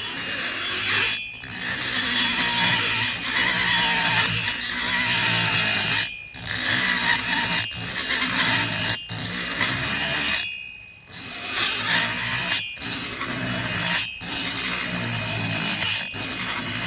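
High-speed rotary grinder cutting metal, widening the exhaust port of a chainsaw cylinder: a steady high whine over a hiss, in long runs broken by short pauses and one longer pause about ten seconds in.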